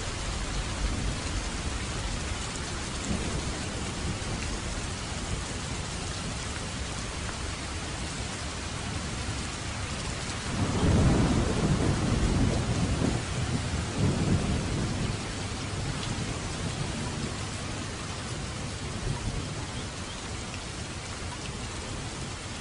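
Steady heavy rain falling, with a roll of thunder rumbling about halfway through that swells loudest for a few seconds and then fades back into the rain.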